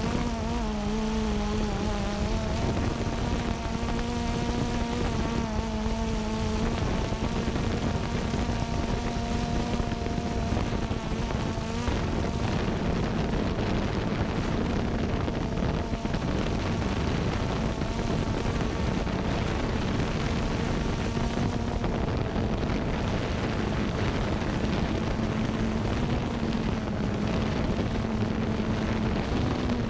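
Xiro Xplorer G quadcopter's motors and propellers buzzing in flight, heard from the camera on board, with a whine of several tones that shifts slightly in pitch during the first dozen seconds, then a rougher rushing noise of propeller wash and wind as it descends.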